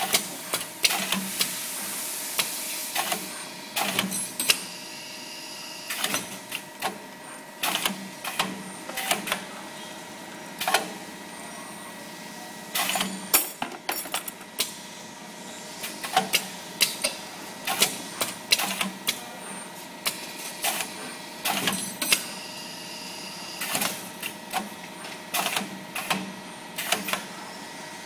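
CNC wire bending machine with an automatic loading and pick-up system running its cycle: a steady whine runs under many sharp clicks and clunks in uneven clusters as the clamps, grippers and bending head move. Two stretches of hiss, about a second in and again past twenty seconds, stand out above the clatter.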